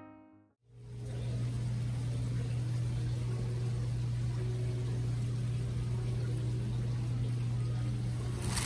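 Steady low hum with a hiss over it from the aquarium pumps and filters of a fish store's display tanks, starting about a second in after piano music fades out.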